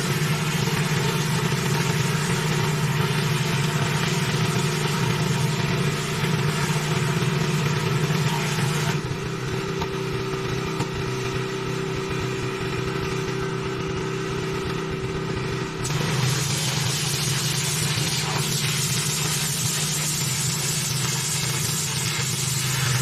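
Petrol pressure washer running steadily, its engine giving a low hum under the hiss of the water spray. The hiss dies down for several seconds partway through, then comes back stronger.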